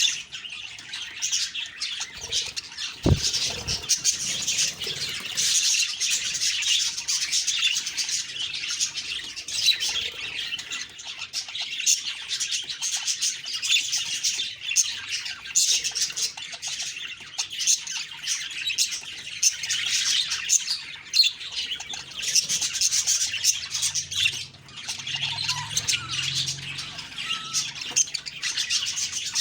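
Budgerigars chattering and chirping without a break, many calls overlapping, with one short dull thump about three seconds in.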